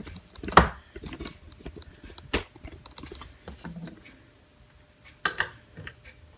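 Handling noise from a camera and tripod being repositioned: a run of light clicks and rattles, with a sharp knock about half a second in, another in the middle, and two close together near the end.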